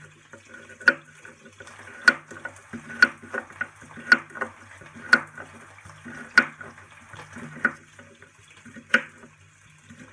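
Chef's knife dicing carrot strips on a bamboo cutting board: sharp knocks of the blade hitting the board about once a second, with lighter taps in between. Under it runs a steady sizzle of beef browning in olive oil in a frying pan.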